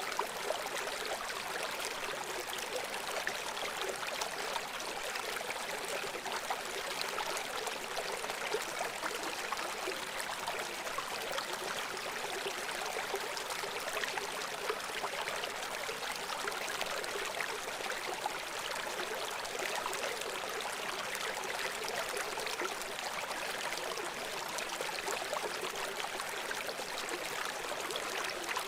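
A river flowing: a steady rush of running water, with no deep rumble.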